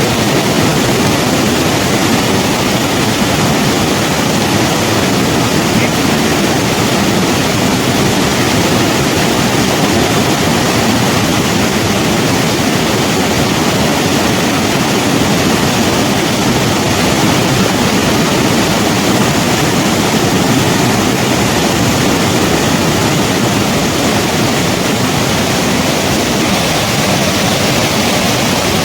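Snow-melt river rushing steadily over rocks, a loud even roar of water with no breaks.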